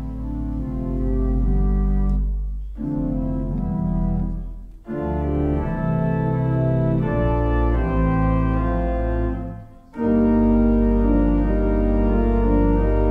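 Sampled pipe organ from the Hauptwerk virtual pipe organ running on a Wersi Sonic OAX, playing a demo piece: sustained full chords over a deep pedal bass, with brief breaks between phrases about five and ten seconds in.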